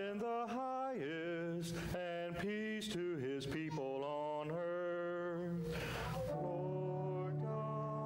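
A man's solo voice chanting or singing a liturgical line unaccompanied, with clear sustained notes. About six seconds in, the voice gives way to a held chord of several steady notes.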